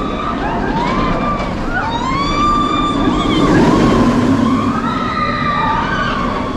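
Riders screaming on a B&M floorless steel roller coaster as the train passes, many overlapping screams rising and falling in pitch, over the low roar of the train running on the track.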